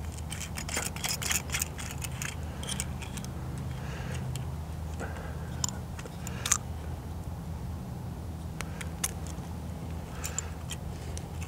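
Small metal screw-top match case being handled, its threaded cap twisted on and off: a scatter of light metallic clicks and ticks.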